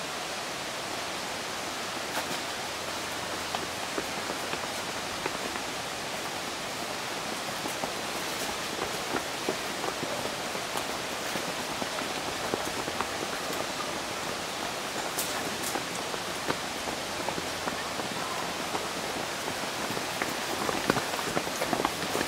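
Footsteps of runners on a stony path, scattered clicks and scuffs that come thicker and louder near the end as a group of runners passes close, over a steady hiss.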